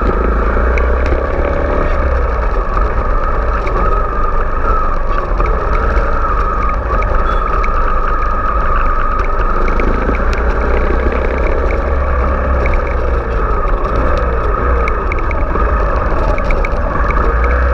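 Kawasaki Ninja 250's parallel-twin engine running under way at low speed, its pitch rising and falling gently as the throttle changes, over a heavy, steady low rumble.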